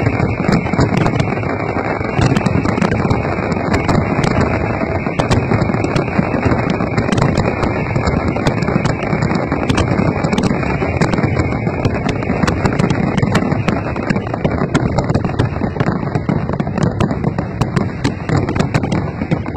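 Fireworks display at full barrage: a continuous din of overlapping bangs with many sharp crackling pops throughout.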